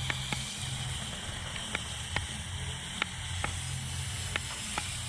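Lego RC crawler's small electric drive running with a low, uneven hum, with irregular sharp plastic clicks, about eight in five seconds, as it works at climbing.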